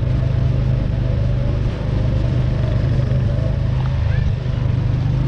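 Motorcycle engine running steadily at low riding speed, heard close up from the bike, with two brief dips in level about two and four and a half seconds in.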